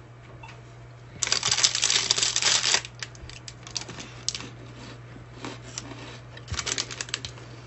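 Computer keyboard typing, its keys clicking. A dense run of keystrokes starts about a second in and lasts about a second and a half. Scattered clicks follow, then another short run near the end, over a steady low hum.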